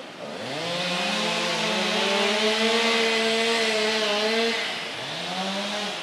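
Two-stroke petrol chainsaw revved up to high speed and held there for about three and a half seconds, then dropping back, with a second short rev just before the end.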